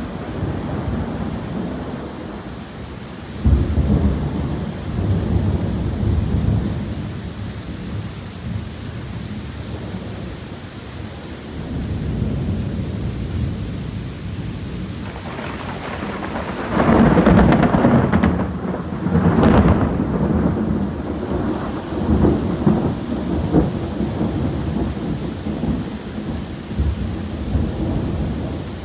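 Torrential tropical rain pouring steadily, with rolls of thunder from a severe thunderstorm. A sharp thunderclap comes about three and a half seconds in. The loudest rumbling comes about two-thirds of the way through.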